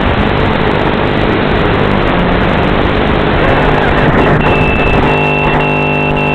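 FPV racing quadcopter's onboard audio: a dense rushing noise while it flies, then, after it crashes into the undergrowth, a steady high beeping tone from about four seconds in, broken by short gaps, over a low hum.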